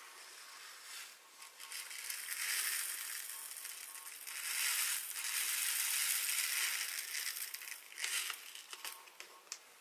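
2 mm seed beads poured from a plastic bag into the wooden bowl of a Beadalon Spin-N-Bead Junior bead spinner: a dense rattling patter in two long pours, with a few scattered clicks near the end.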